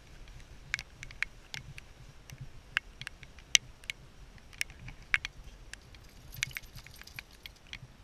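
Light metallic clinks and jingles at an irregular pace, from a walking tracking dog's harness and leash hardware, over a faint low rumble.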